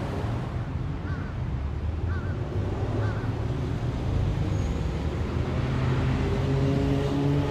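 Street ambience: a low, steady rumble of road traffic, with a few short, faint chirps in the first half. Near the end a steady pitched hum with several tones sets in and grows louder.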